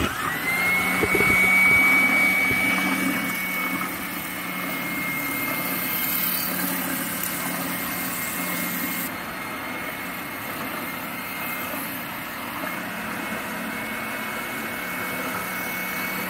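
WEN oscillating spindle sander switching on and running steadily. Its motor whine rises to a steady high pitch within the first half second. The spinning, up-and-down sanding drum rubs against the inner running surface of a rotary engine rotor housing, resurfacing it.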